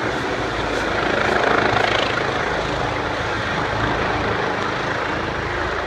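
Eurocopter EC135 helicopter running loud and close: a steady turbine and rotor rush with a low, pulsing rotor beat underneath.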